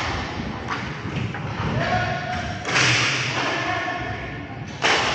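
Inline hockey play in a rink: irregular thuds and knocks of puck, sticks and bodies against the boards, with players' voices, and one sudden sharp knock near the end.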